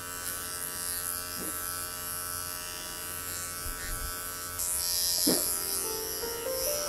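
Wahl Creativa cordless dog clipper with a 15 blade running with a steady buzz as it clips through a toy poodle's curly groin coat. The buzz grows louder and brighter about two-thirds of the way in.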